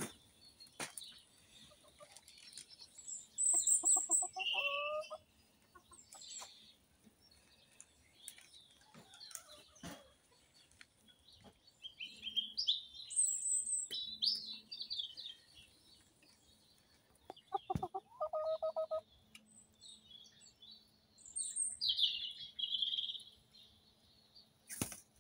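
Salmon Pekin bantam chickens clucking in two short runs, about four seconds in and again about eighteen seconds in. Small wild birds chirp in bursts in between.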